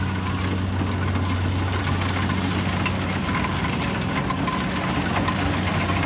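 Engine of a rice combine harvester running steadily, a low even hum that does not change in pitch.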